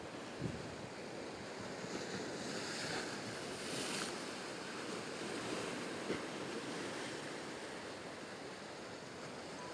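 Ocean surf washing and breaking, with wind on the microphone; the wash swells loudest about three to four seconds in. Two brief knocks stand out, one near the start and one about six seconds in.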